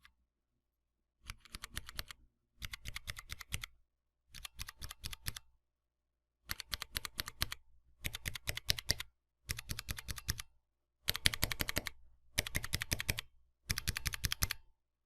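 Cherry MX mechanical keyboard switches being pressed rapidly over and over. The presses come in about nine separate bursts of quick clicking, each about a second long, with short pauses between them.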